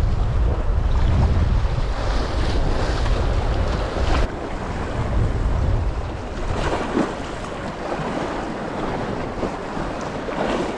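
Strong wind buffeting the microphone over seawater washing and splashing around rocks. About four seconds in the wind rumble drops away, leaving the steadier hiss and slap of choppy sea.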